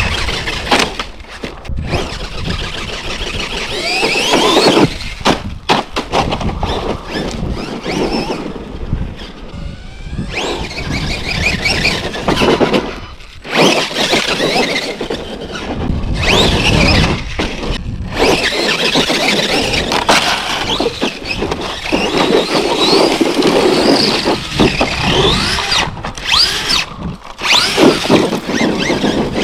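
Losi LMT RC monster truck's electric motor whining in repeated rising and falling revs, over rough drivetrain and tyre noise, with several brief breaks in the sound.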